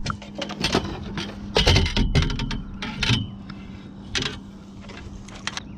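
Knocks, rattles and scrapes of a landing net being picked up and handled against the boat, loudest about two seconds in, with a steady low hum underneath.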